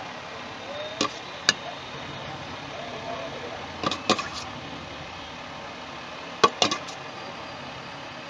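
A metal spoon clinking sharply against a steel mixing bowl as chaat mix is scooped and spooned out: single knocks about a second apart, then two quick clusters. Under it runs a steady hum of street and traffic noise.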